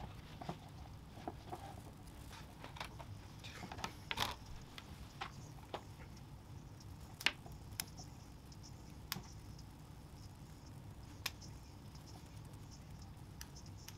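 Hands working a hoodie's stitching with a needle: fabric rustling and scattered small clicks and picks, the sharpest about seven seconds in, over a steady low hum.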